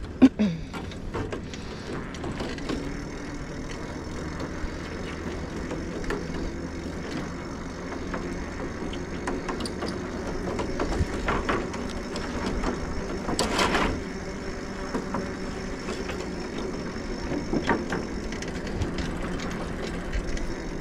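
Bicycle rolling along a grated boardwalk deck: a steady rumble and hum from the tyres, with scattered clicks and rattles and a louder rattle about two-thirds of the way through. A sharp squeaking knock comes right at the start.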